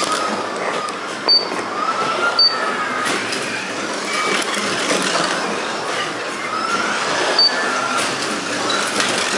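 Carrera Digital 1/24 Ferrari P4 slot cars racing, their small electric motors whining and rising and falling in pitch as they speed up and slow down through the corners. Four short high beeps cut through, the loudest sounds.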